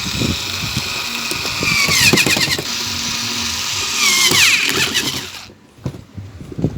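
A small electric motor running fast with a whine and hiss, its pitch dipping briefly twice, then cutting off sharply near the end, followed by a couple of knocks.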